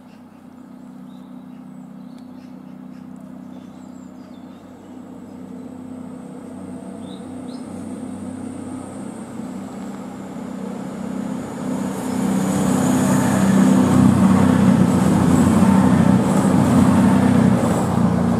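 Bombardier Voyager diesel multiple unit approaching and passing. The drone of its underfloor diesel engines grows steadily louder as it nears, then wheel and rail noise joins in and is loudest as it goes by near the end.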